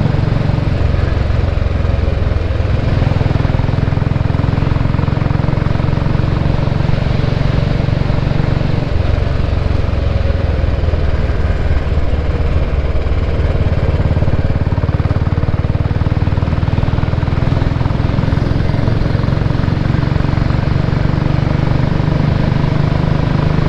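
Royal Enfield Bullet's single-cylinder engine running steadily as the motorcycle cruises at road speed, with wind and road noise rushing past. The engine note changes about three seconds in and again near nine seconds.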